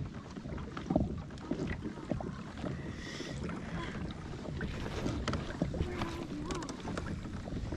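Wind buffeting the microphone over small water sounds around a kayak hull at sea, with scattered light knocks and clicks.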